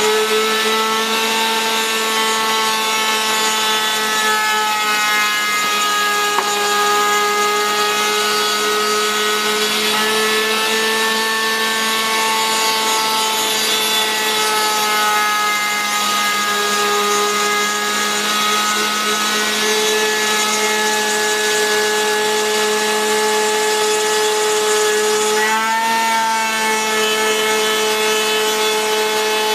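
CNC router spindle cutting wood, a steady whine over cutting noise whose pitch drifts slightly up and down with the load, with a brief wobble near the end. The router bit is very worn and takes light passes.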